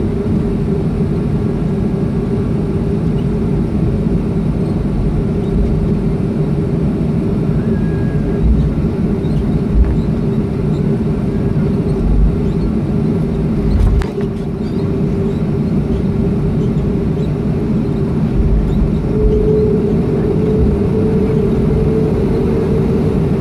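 Cabin noise of a Boeing 737-300 taxiing, its CFM56 engines at idle giving a steady hum with a constant whine. The whine rises a little in pitch about two-thirds of the way through. A few low thumps come from the rolling aircraft, and there is a sharp click about fourteen seconds in.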